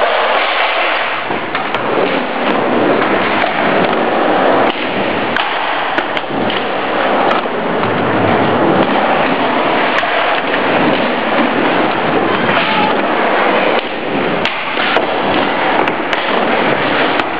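Skateboard wheels rolling over wooden ramps and a concrete floor: a continuous loud rumble with occasional sharp clacks of the board.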